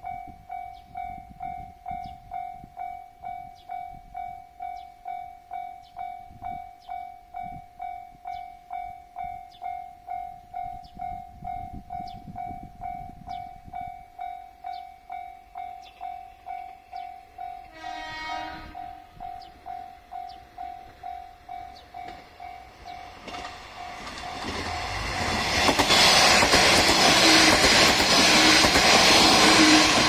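Level-crossing alarm ringing, an electronic bell tone pulsing about twice a second. About halfway through a train horn sounds briefly. Then a JR Shikoku 1200 series diesel railcar approaches and grows loud as it reaches the crossing, with the alarm still ringing under it.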